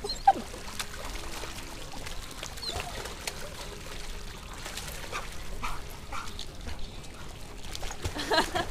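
Water splashing and trickling as a dog wades through a shallow stone-lined pond, with a single sharp short sound about a third of a second in.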